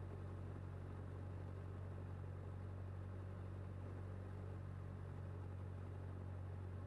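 Cessna 152's four-cylinder Lycoming engine and propeller running at a steady speed, heard from inside the cockpit as an even, low drone.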